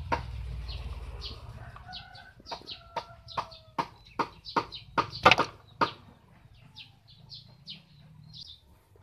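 A chicken clucking in a quick run of short, sharp calls, about two or three a second, which dies away after about six seconds. Faint high chirps follow near the end.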